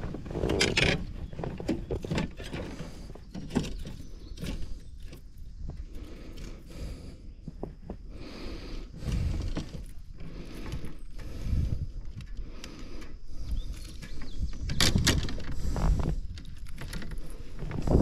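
Irregular clicks, rattles and knocks of fishing gear being handled on a kayak while a hooked bass is landed, over a low rumble of wind on the microphone.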